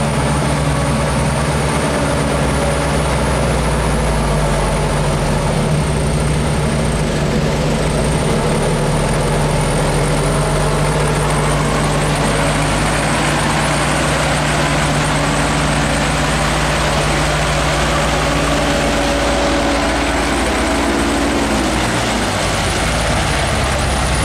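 Diesel engine of a loaded light truck running at low speed as it crawls along a muddy dirt road, with a steady low note that drops in pitch about 21 seconds in.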